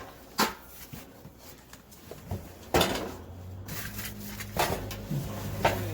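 Knocks and clatter of grill parts being handled while being unpacked from the box, a few separate sharp strikes spaced a second or more apart. A low steady hum comes in about halfway through.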